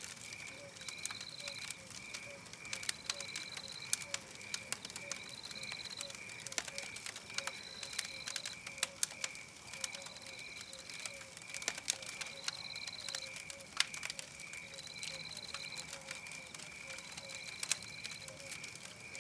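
Campfire burning with a steady hiss and frequent sharp crackles and pops from the wood. Behind it, regular high calls repeat: a steady pulsing note and a short higher note about every two seconds.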